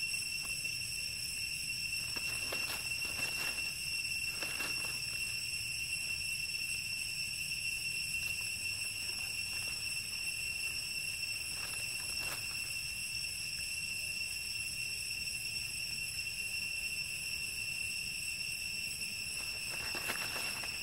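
Steady high-pitched insect drone in the forest, one unbroken tone with overtones. A few faint brief rustles, like dry leaves being disturbed, come and go under it.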